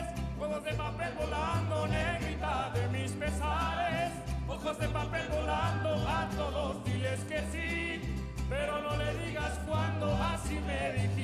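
Background music: a wavering melody over bass notes that change in a steady, even rhythm.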